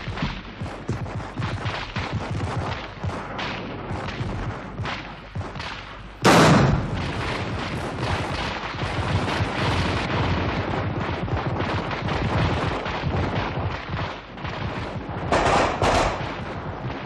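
Sustained battle gunfire, many shots in quick succession, with one much louder blast about six seconds in and a louder cluster of shots near the end.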